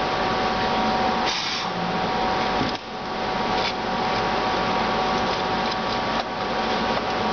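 Electric drill running steadily at low speed, drilling into an aluminium bike rim. There is a brief drop in level about three seconds in.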